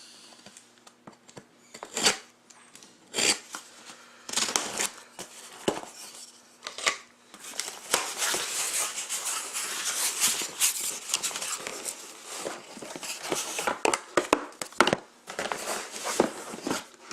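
A sealed cardboard case of card boxes being cut open and unpacked. Scattered clicks and knocks come first, then several seconds of tearing and rustling about halfway through, then more knocks near the end.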